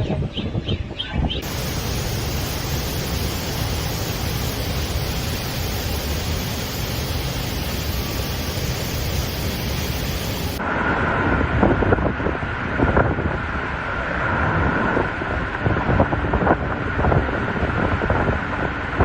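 Steady rushing noise of storm wind, with abrupt cuts to a different rush about a second in and again about halfway through; in the second half, gusts thump against the microphone.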